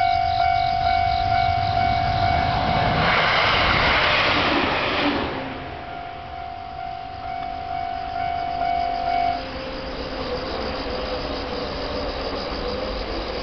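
Japanese level-crossing alarm ringing in fast, evenly repeated dings, broken about three seconds in by the short rush of an IGR 7000 series railcar passing over the crossing. The alarm rings on after the train and stops about nine seconds in, the sign that the crossing is clearing.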